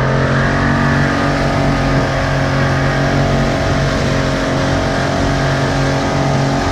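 A Suzuki DT65 65 hp two-stroke outboard running steadily at speed, pushing a rigid inflatable boat, with one unchanging engine note. The rush of water from the boat's wake is heard under it.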